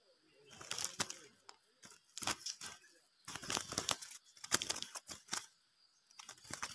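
Repeated bursts of fluttering and scraping, about five clusters of sharp rustling strokes with short quiet gaps between them, as a wild white-rumped shama flaps and clings against a wire birdcage holding another bird.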